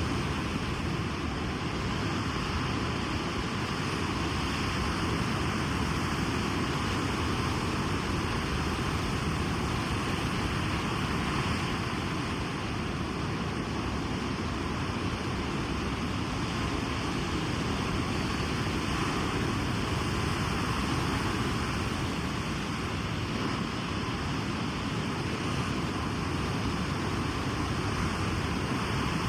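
Sea surf on a beach: a steady, even rush of wave noise with no single breaking wave standing out.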